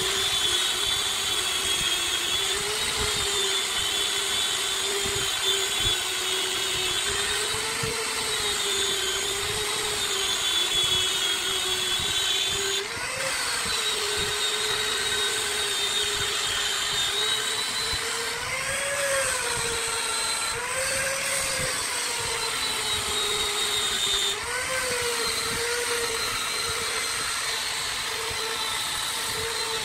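Angle grinder with a sanding disc whining as it sands a turned wooden piece spinning on a lathe. The whine wavers, rising briefly several times.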